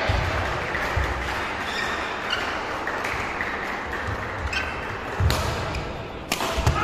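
Badminton rally in a large hall: two sharp racket strikes on the shuttlecock about a second apart near the end, with short shoe squeaks and footfalls on the court earlier, over steady hall noise.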